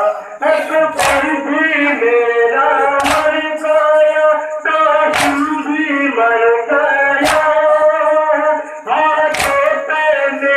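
A man chanting a Muharram noha lament through a microphone and loudspeakers, with a group of mourners striking their chests in unison (matam) about every two seconds, five strikes in all.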